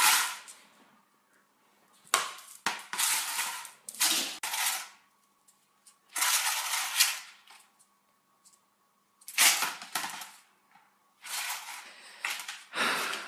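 Plastic laundry basket scraping and rattling across a tile floor as a small dog shoves it with its head. The noise comes in repeated bursts of a second or less with short quiet gaps between them.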